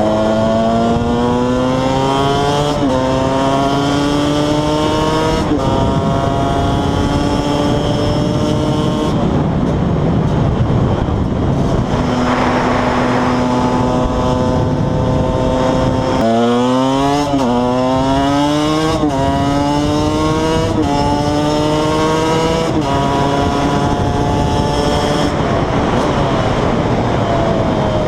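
KTM 125 EXC two-stroke single-cylinder engine pulling hard through the gears: its pitch climbs and drops back at each upshift, about every two to three seconds. Partway through it goes off the throttle into a rushing, tuneless stretch, holds a steady pitch for a few seconds, then drops and revs up again through a quick run of shifts.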